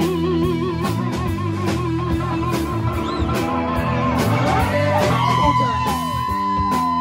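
Live electric blues band: lead electric guitar playing a high note with wide vibrato, then string bends, then holding a long sustained note from about five seconds in, over a repeating bass line and drums.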